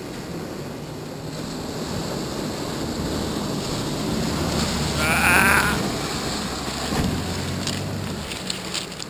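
Toyota Land Cruiser 4WD engine pulling through deep mud, growing louder as the truck approaches and passes about five seconds in, then fading, with mud and water sloshing around the wheels. A brief wavering high-pitched sound rides on top at its loudest, and a few sharp clicks follow near the end.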